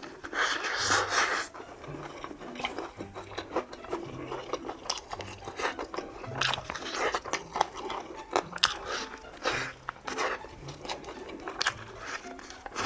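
Close-up crunching bites and chewing of crispy Korean fried chicken, crackling strokes coming one after another. The loudest, crunchiest bite comes about a second in.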